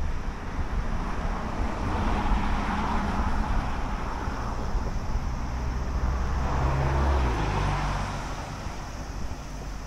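Road traffic: two motor vehicles pass one after the other, each swelling up and fading away, with a low engine hum as the second goes by. Wind rumbles on the microphone throughout.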